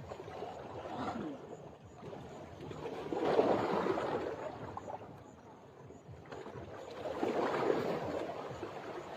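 Water washing in noisy swells, two main surges that build and fade about three and seven seconds in, like waves lapping against an embankment.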